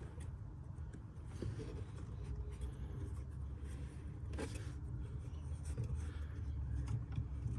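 Hands working a xenon headlamp bulb and its plastic mount into the back of the headlight housing: light scraping and fumbling, with small clicks and one sharper click about four and a half seconds in.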